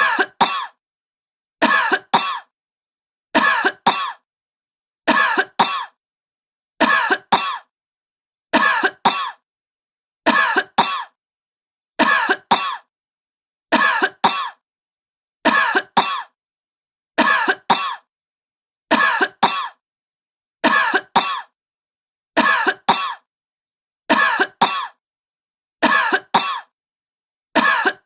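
A sick woman coughing in short double coughs, one pair about every second and three-quarters, each pair the same as the last, with dead silence between.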